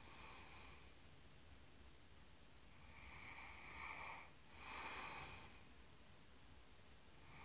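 A woman's faked snoring: three faint, breathy snore-like breaths, a short one at the start and two in a row about three to five seconds in.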